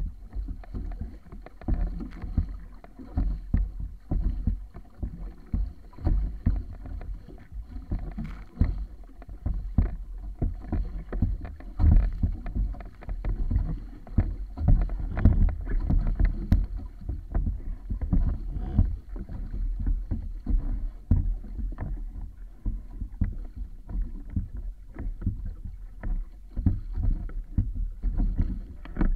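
Water splashing and slapping against the wooden hull of a wa'apa outrigger sailing canoe moving through choppy sea, with irregular sharp surges as it meets the waves over a steady low rumble.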